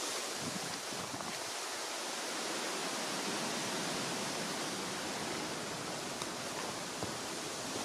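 Steady hiss of wind through the trees and long grass, with a few faint footfalls in the grass.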